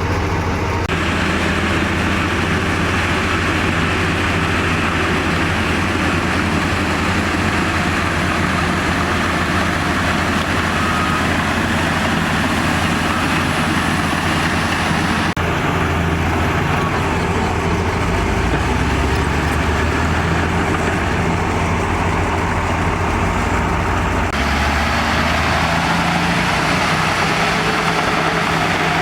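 Heavy diesel engines of earthmoving machinery running steadily at work, the bulldozer and dump-truck engine sound shifting abruptly in pitch and tone three times.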